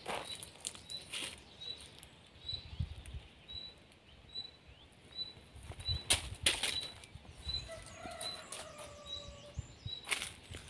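Dry leaves rustling and crunching in several short bursts as they are handled into a plastic crate and stepped through. A faint high chirp repeats about twice a second throughout.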